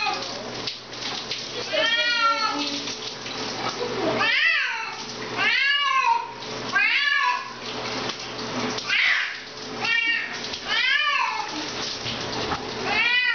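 Domestic cat meowing loudly and repeatedly while being washed in the shower, about eight long calls, each rising then falling in pitch: a protest at the bath. A steady hiss of the running shower lies under the calls.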